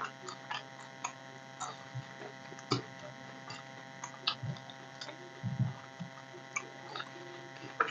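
Quiet eating sounds of people chewing food eaten by hand: scattered soft mouth clicks and smacks, with a couple of low soft thuds. A steady electrical hum runs underneath.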